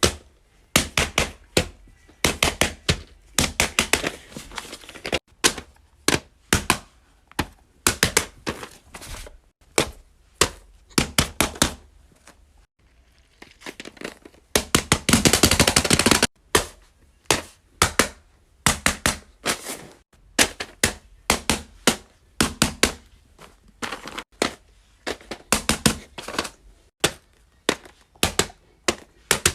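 Fidget toys being clicked, tapped and popped by hand: quick runs of sharp clicks and thunks, with a denser rattling stretch about halfway through.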